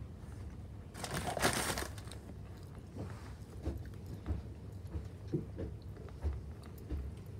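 Low steady hum inside a stopped train carriage, with a brief loud rustle about a second in and scattered small clicks and knocks after it.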